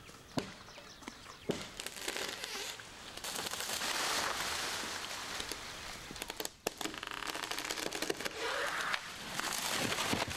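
Leafy kapok branches rustling and cracking as they are broken off the tree. A few sharp cracks come in the first two seconds, then longer stretches of rustling leaves, cut off abruptly for a moment about six and a half seconds in.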